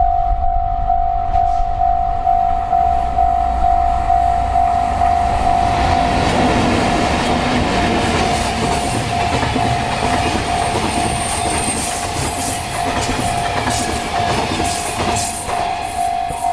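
A level-crossing warning bell rings steadily at about two strokes a second. From about six seconds in, a freight train hauled by two EF64 electric locomotives passes, its wheels clattering over the rail joints and largely drowning the bell until near the end.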